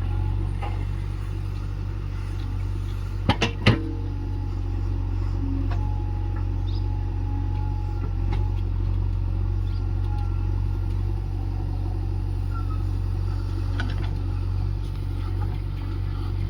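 Heavy diesel engine running steadily with a low rumble, broken by a few sharp knocks or clanks about three and a half seconds in.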